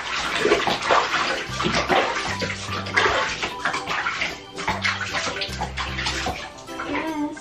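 Water splashing in a bathtub as a wet cat is rinsed by hand, with background music carrying a stepping bass line underneath.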